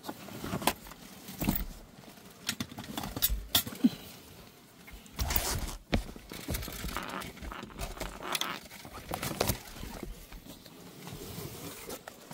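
Irregular knocks, clicks and rustling from someone moving about at a car's open door, with footsteps on gravel. The longest rustle comes about five seconds in.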